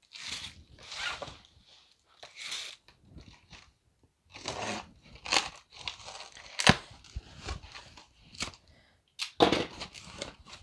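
Safety box cutter slitting the packing tape along a cardboard box's seam, then the cardboard flaps being pulled open: a series of scraping, tearing strokes with a few sharp snaps, the loudest about two-thirds of the way through.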